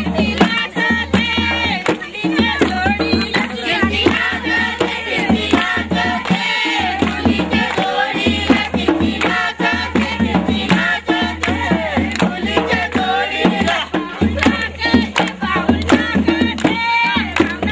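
Folk music for dancing: voices singing over a steady beat of percussion.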